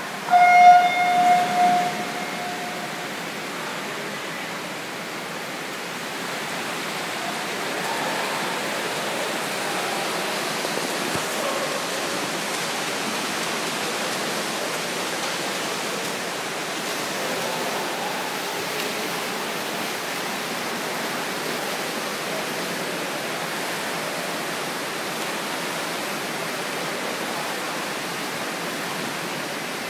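Electronic swim-race start signal, a steady beep lasting about two seconds, sounding about half a second in; then a steady, echoing wash of splashing water from swimmers racing in an indoor pool.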